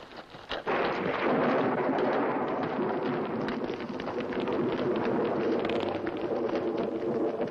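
Soundtrack storm: a sudden loud crash of thunder less than a second in, then a sustained heavy storm rumble mixed with dramatic orchestral music.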